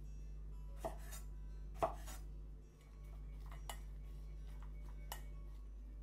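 A kitchen knife chopping green beans on a bamboo cutting board, about four sharp chops with the loudest near two seconds in, then a few lighter clinks against a stainless steel mixing bowl as the beans are stirred, over a steady low hum.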